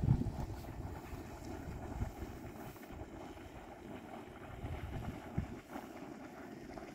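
Wind buffeting the microphone: an uneven low rumble that rises and falls in gusts, strongest right at the start.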